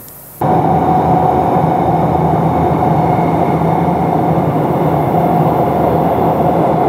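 Loud, steady machinery noise with a constant hum, starting abruptly about half a second in and running on unchanged.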